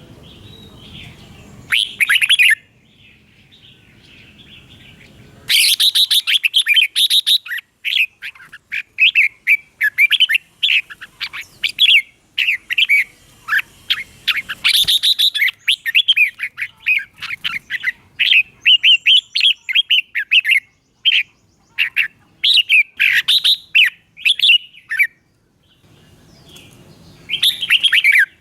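Red-whiskered bulbul singing: one short phrase, then a long run of quick, bright, warbling notes lasting about twenty seconds, a brief pause, and one more phrase near the end.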